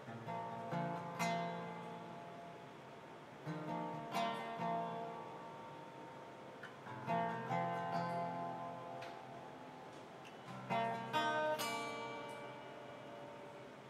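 Acoustic guitar strumming slow, sustained chords, a new chord about every three and a half seconds, each left to ring out and fade.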